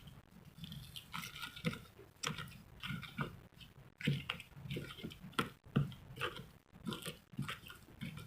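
A person chewing food close to the microphone: a run of irregular crunches and smacks.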